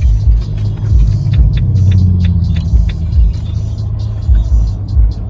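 Music with deep bass thumps playing inside a car, over the low steady hum of the cabin.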